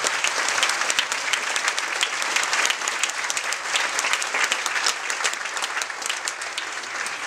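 Theatre audience applauding: dense clapping that slowly fades.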